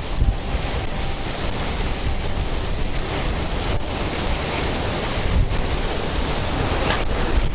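Wind buffeting the microphone and blowing through reeds: a steady rushing noise with a heavy low rumble.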